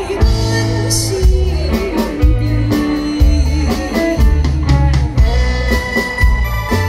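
Live band music with a steady drum beat and bass under a singer's voice.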